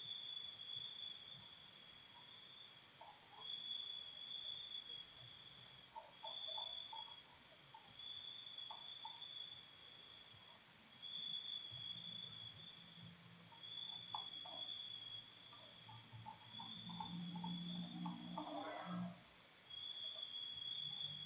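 Background insects chirping: a steady high trill with a shorter chirp repeating about once a second, with a few faint clicks in between.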